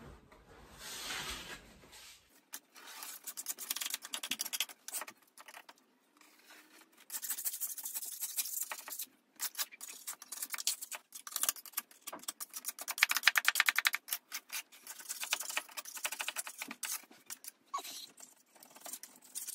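A 2.5-inch metal scraper scraping water-soaked wallpaper backing paper off a wall, in a series of rasping strokes of one to three seconds each with short pauses between them, the paper tearing away as it goes.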